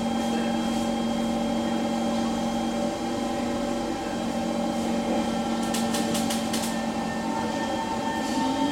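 Inside an SMRT C151 metro car standing with doors closed: a steady hum with several constant tones from the train's onboard equipment and air conditioning, and a quick run of short hisses about six seconds in. Near the end a rising whine begins as the train starts to pull away.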